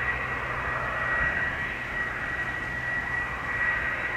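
Bombardier Global 7500's twin GE Passport turbofans on landing approach: a steady jet rush with a thin high whine running through it.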